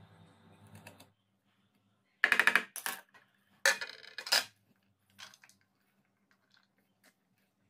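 A kitchen knife chopping onion on a wooden cutting board: two loud bursts of quick knife strikes, a few seconds in, each lasting under a second. Before them a short stretch of music ends about a second in, and a few faint taps follow them.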